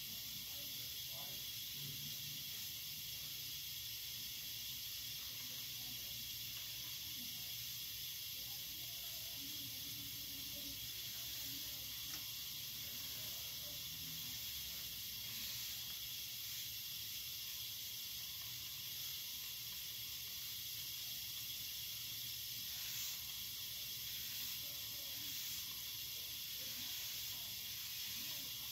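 Steady hiss of background noise, with faint, scattered scratching of a felt-tip marker colouring on sketchbook paper.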